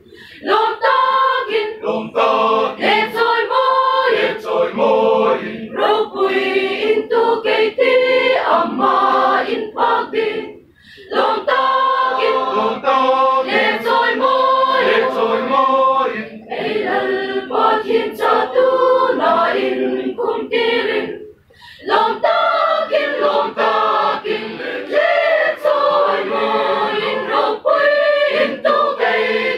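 Mixed choir of women and men singing in harmony, with two short breaks between phrases, about eleven and twenty-one seconds in.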